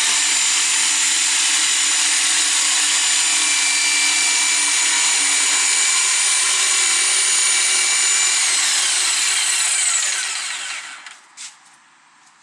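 Bosch PST 800 PEL jigsaw running steadily as its blade cuts through laminated chipboard. About nine seconds in the motor is switched off and its whine falls in pitch as it winds down to a stop, followed by a few faint knocks.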